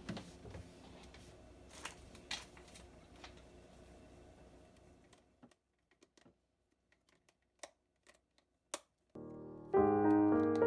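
Background piano music that fades out over the first few seconds. Then a stretch of near silence broken by a few small, sharp clicks and taps. New piano music starts about a second before the end.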